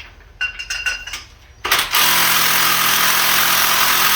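A few light metallic tool clinks, then about one and a half seconds in a power tool starts with a sudden loud burst and runs steadily and loudly with a hammering rattle.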